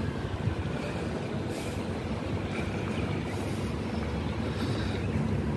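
Wind rumbling on the microphone outdoors, a steady low rumble that shifts irregularly.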